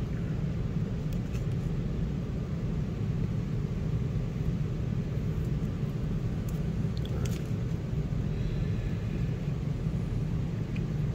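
Steady low background rumble, with a few faint crinkles and flicks as a trading card is slid into a clear plastic sleeve and a stack of cards is handled, about a second in and again around seven seconds in.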